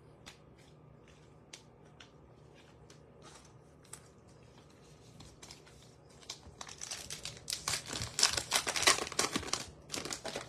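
A few faint clicks, then from about six seconds in, loud crinkling and tearing as the wrapper of a 2022 Topps Heritage baseball card pack is ripped open.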